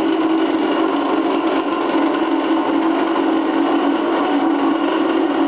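Titan truck wheel polishing machine running, its electric motors giving a loud, steady, even hum.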